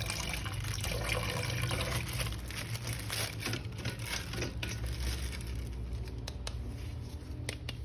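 Water running and trickling over a plastic action figure as it is washed by hand, with a few light clicks of handling near the end.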